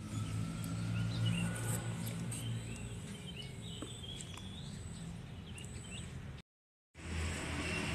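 Small birds chirping with short, scattered calls over a low hum that is strongest in the first couple of seconds. The sound drops out completely for about half a second near the end.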